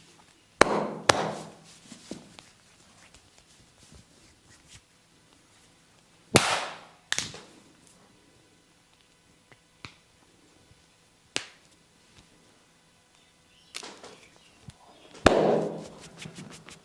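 Sharp smacks of a masseur's open hands slapping bare skin during a back massage. There are about six loud smacks, mostly in pairs, a few seconds apart, with quicker light tapping near the end.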